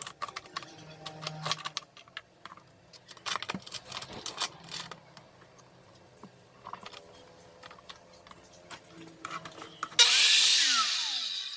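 Light clicks and knocks of a square MDF board being handled and set against the fence of a crosscut jig. About ten seconds in, a Bosch circular saw starts with a sudden loud burst, a whine falling in pitch within it, and then cuts off abruptly.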